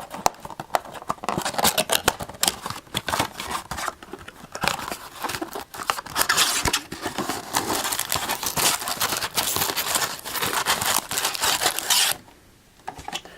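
Cardboard and wrapping of a retail blaster box of trading cards being torn open and crinkled, a dense run of quick rips and crackles that stops about a second before the end.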